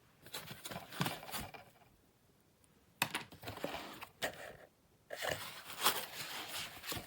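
Handling sounds: irregular rustling and light clicks in three bursts of one to two seconds each, with quiet gaps between.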